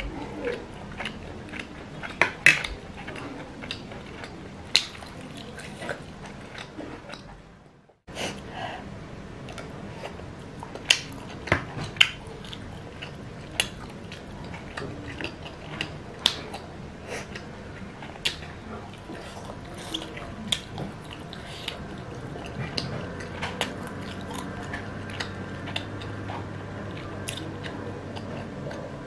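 Close-miked chewing and biting of Samyang-style instant noodles and tteokbokki rice cakes, with many short sharp clicks. The sound fades out briefly about eight seconds in, then resumes.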